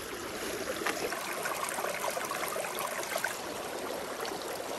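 Small rocky mountain creek babbling and trickling over stones, a steady splashing.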